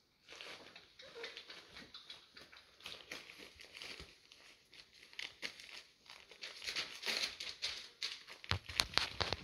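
Puppies moving about on newspaper bedding, crinkling and tearing the paper: irregular rustling and crackling that grows busier in the second half, with a few low thumps near the end.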